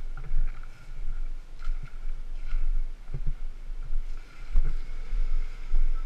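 Low rumble and irregular thumps from the camera being jostled as it moves along a rough dirt trail, with a faint steady high whine underneath.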